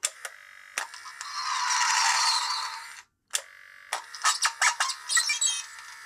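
Kenner Imperial Troop Transporter voice box, a small battery-driven record player: a button clicks, the little motor starts with a faint hum and the record plays a noisy sound effect that swells and fades, then another click as it stops. A second button follows, playing a sound effect of rapid sharp crackles with a warbling high tone. To the owner's ear the sounds run slightly too fast.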